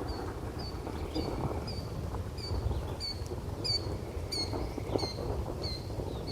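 Steady rain with a low rumble, over which an animal repeats a short, high, downward-dipping chirp roughly every half second.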